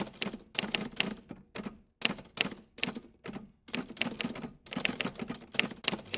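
Typewriter sound effect: rapid key clacks in uneven runs, broken by short pauses, matching text typing out on screen.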